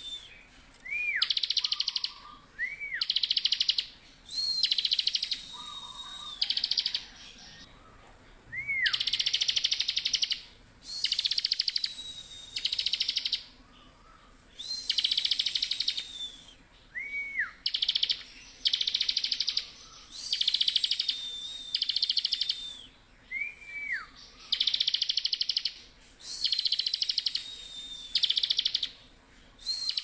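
Bar-winged prinia (ciblek) singing steadily: loud, rapid buzzy trills about half a second to a second long, repeated every second or two, with thin high held whistles and short down-curving chirps between them.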